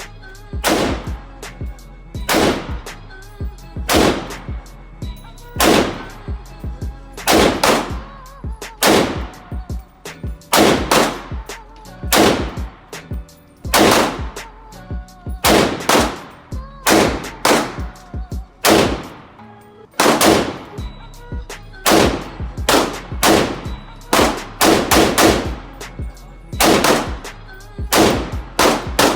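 Semi-automatic gunfire on a range: sharp shots roughly one a second, sometimes in quick doubles and short fast strings, each with a brief echo. Background music with a steady low bass runs underneath.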